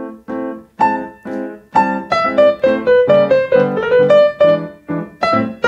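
Yamaha grand piano played solo: jazz chords and single notes struck in an uneven rhythm, getting busier after the first couple of seconds. The player is deliberately falling behind the beat and then catching up, the sudden lag typical of jazz beat.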